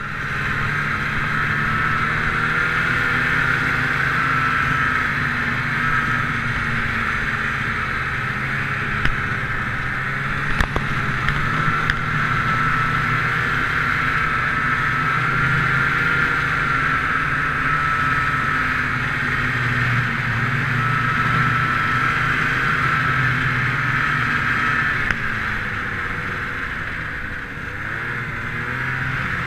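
Snowmobile engine running steadily under way, a constant high whine over a low drone. A few sharp knocks come about ten seconds in, and the sound dips briefly near the end.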